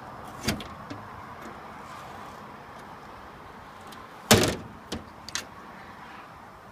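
Hinged metal compartment door on a food truck's body being worked: a short click about half a second in, then a loud metal bang as the door is shut a little after four seconds, and two light clicks of the latch just after.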